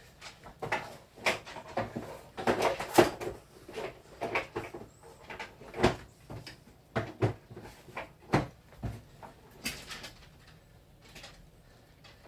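Irregular clicks and knocks of an electronic keyboard's hard plastic parts and tools being handled during disassembly. They come thickest about two to three seconds in and thin out after about ten seconds.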